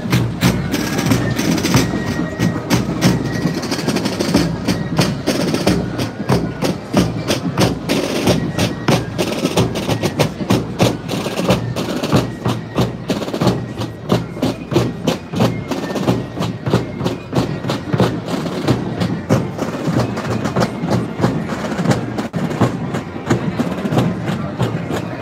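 Marching snare drums of a colonial-style drum corps beating a steady cadence, with a thin high tone over them in the first few seconds.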